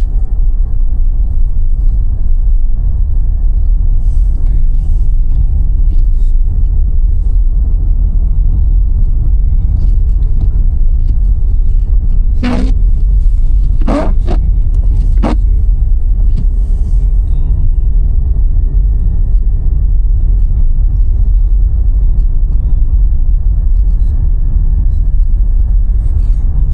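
Steady low rumble of a car in motion, heard from inside the cabin. Three short sharp sounds come in quick succession about halfway through.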